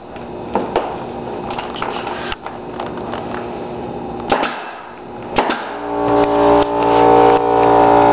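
Pneumatic nail gun firing a few sharp shots at uneven intervals, the loudest about four and five seconds in. After the last shot an air compressor motor starts up and runs with a steady hum that grows louder, refilling the tank the gun has drawn down.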